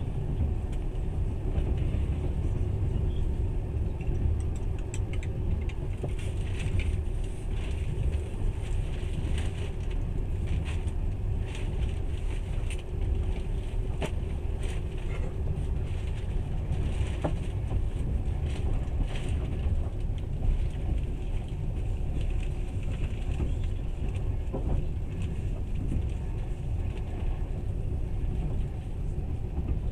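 Passenger train carriage running at speed, heard from inside: a steady low rumble with a constant hum and scattered short clicks and rattles.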